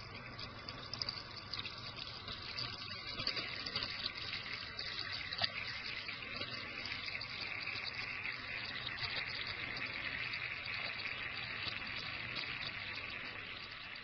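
Fine water jets falling from hypodermic needles into a charge-collecting cylinder, a steady spraying hiss with a few sharp ticks in the first half.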